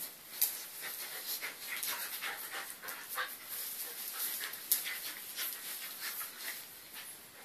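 A Eurasier puppy and its mother play-wrestling on a tile floor: dog panting, with many quick scrapes and clicks of claws on the tiles, one louder click a little past halfway.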